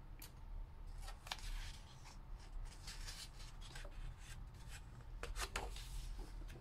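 Faint rustling and light taps of paper as a hand handles a picture book and turns a page, with the stronger rustles of the page turn near the end.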